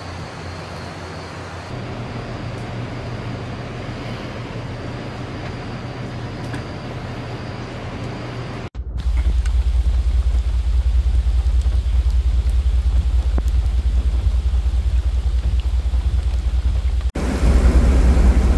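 Steady hiss of falling rain with a faint low hum. About halfway through, it cuts to a vehicle driving through floodwater in heavy rain: a loud, steady low rumble under the rain, which grows louder near the end.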